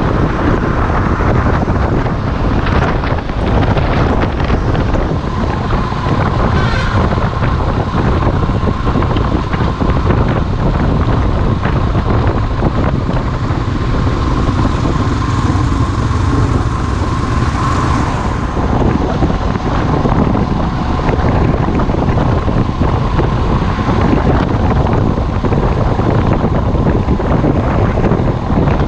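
Wind rushing over the microphone of a camera on a moving Royal Enfield Himalayan, with the bike's single-cylinder engine running steadily beneath at cruising speed. A faint steady whine sits above the noise through the middle stretch.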